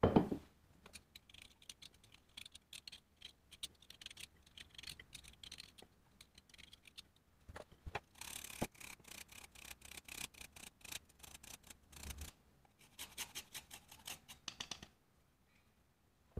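A plate knocks down on the table, then a lime's peel is pared off and its zest grated: runs of quick, scratchy scraping strokes, densest about halfway through.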